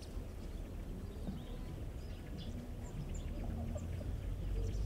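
Outdoor ambience: scattered short bird chirps and a few faint low calls over a low rumble that grows louder toward the end. No rooster crow.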